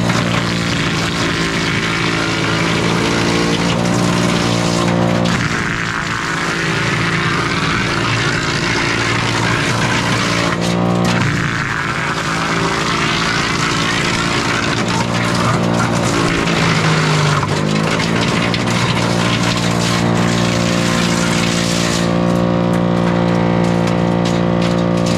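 Split-Fire wood chipper running steadily while red pine sawmill slabs are fed in and chipped, a dense chipping noise over the engine's hum. The engine pitch sags and recovers a few times as it takes the load.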